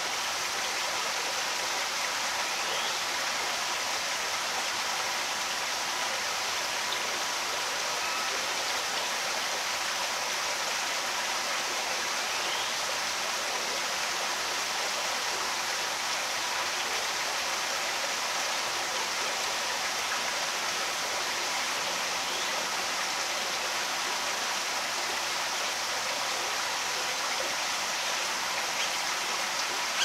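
Steady outdoor rushing noise, an even hiss with no breaks, with a few faint short high chirps over it.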